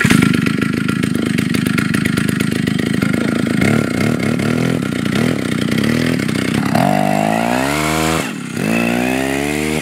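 Small two-stroke chainsaw engine on a handmade snowmobile running at a steady idle. About seven seconds in it revs up in rising sweeps, drops off briefly near the end and revs up again.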